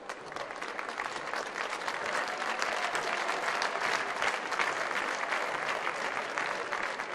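Crowd applauding, many hands clapping, swelling over the first couple of seconds and easing slightly near the end.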